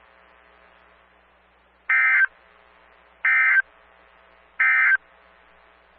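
NOAA Weather Radio digital SAME data bursts: three short buzzing bursts about a second and a half apart over faint hiss. Coming straight after a severe thunderstorm warning, they are the end-of-message code that closes the warning.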